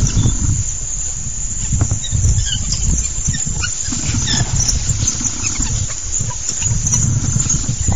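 African wild dogs giving short high-pitched chirping calls, most of them in the first half, over a steady low rumble.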